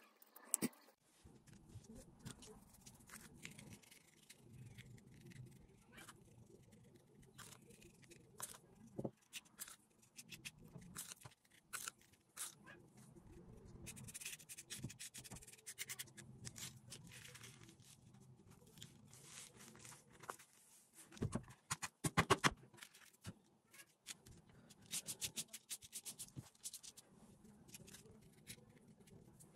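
Faint hand-work sounds of sand painting: a toothpick scratching and peeling the adhesive backing off the board, then coloured sand rustling and patting across the sticky paper, with many small clicks. A cluster of louder knocks comes about two-thirds of the way through.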